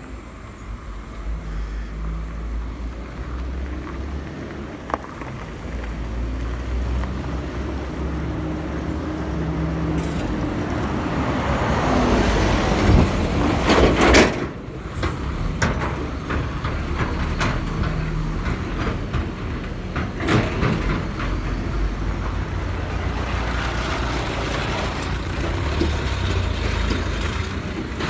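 Road traffic noise: a steady low engine rumble, with a vehicle passing loudest about halfway through, and scattered knocks and rattles.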